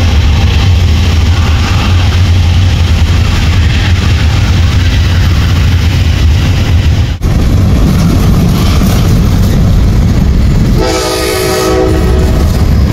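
Diesel freight train running by with a steady, loud low engine rumble. Near the end a locomotive horn sounds one short blast of about a second.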